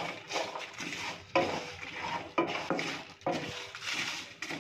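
A wooden spatula stirring whole spices (bay leaves, coriander seeds and other seeds) around a nonstick pan as they roast. The spices scrape and rattle against the pan in uneven strokes, about two a second.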